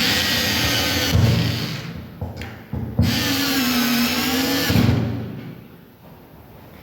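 Power drill running in two bursts of about two seconds each, the pitch of the second dipping and then rising again as the motor takes load, while fixing screws to mount a ceiling rose.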